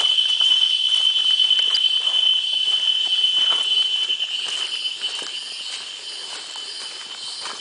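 A jungle insect's steady, high-pitched buzz, fading over the last few seconds, with footsteps and rustling along the trail.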